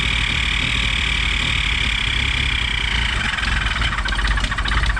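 1967 Triumph GT6's straight-six engine idling with a high-pitched screaming noise over it, which the owner traces to the carburettors, the front one most likely, and which sounds to him like air being sucked in. About three seconds in, the scream drops lower in pitch and turns rougher.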